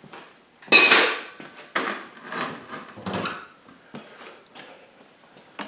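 A handful of sharp knocks and scrapes, the loudest about a second in, from tools and metal being handled at a coal forge while the fire is being lit.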